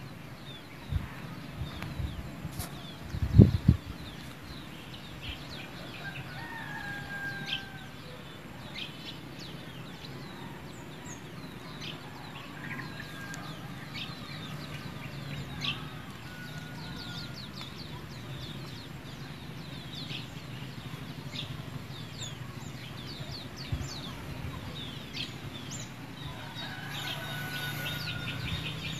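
A rooster crows in the distance a few times over many short bird chirps and a steady low hum, with a couple of low thumps a few seconds in.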